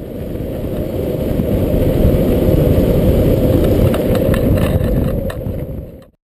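Rough, rumbling wind and road noise of a fast downhill longboard run, the wind buffeting the camera microphone. It builds over the first two seconds, holds steady with a few sharp clicks, and cuts off abruptly near the end.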